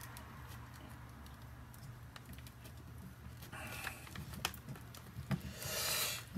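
Hands handling small parts: light scattered clicks and taps as new crimp connectors are picked out and fitted onto spliced wire ends, with a short rustle near the end, over a low steady hum.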